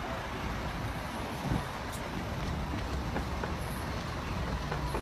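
Steady low rumble of outdoor background noise, like road traffic, with a few faint ticks.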